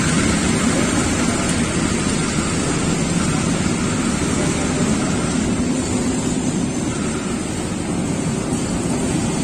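Passenger train rolling slowly along the platform: a steady, loud rumble of wheels on rail with a low drone underneath.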